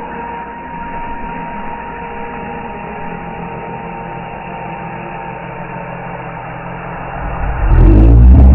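A steady engine-like hum with a whine that fades away over the first few seconds, then a loud monster roar starting near the end, the loudest sound here.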